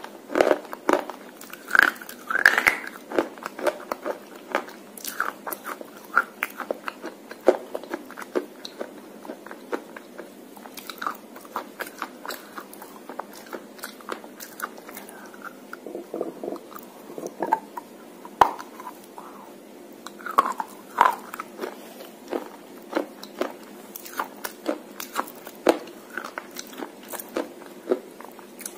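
A white slate pencil coated in red clay paste being bitten and chewed, with many short, irregular crunches and snaps.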